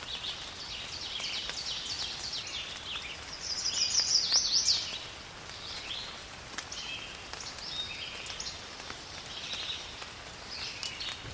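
Several songbirds chirping and calling over faint background noise, with a louder run of quick sweeping notes about four seconds in. Scattered faint clicks are also heard.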